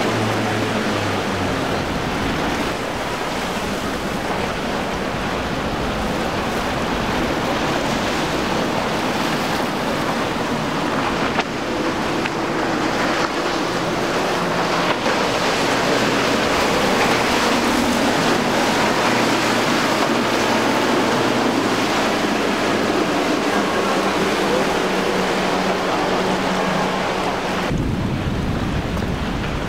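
Outboard engines of fast-running center-console boats droning low and steady, mixed with the rush of spray and surf and wind buffeting the microphone.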